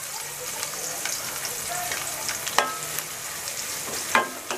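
Chopped onions sizzling steadily in hot soybean oil with whole spices in a steel pan. A wooden spoon clacks against the pan twice, with a brief metallic ring, as the onions are stirred.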